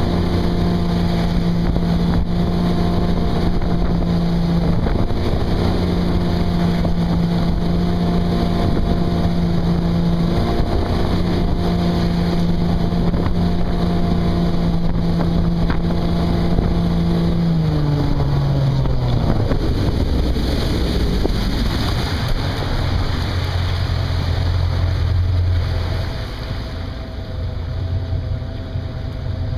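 Tow boat engine running steadily at skiing speed, with wind on the microphone and wake hiss. About two-thirds of the way in the engine note drops as the boat is throttled back and slows, leaving a lower, rougher idle-like rumble.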